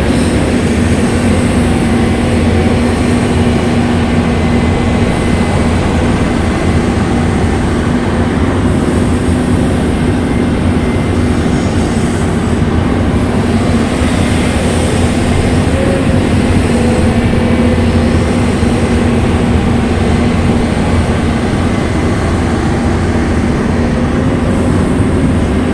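Caterpillar 320D2 hydraulic excavator's diesel engine running steadily at working speed while loading a truck with sand, a constant hum with no big rises or drops.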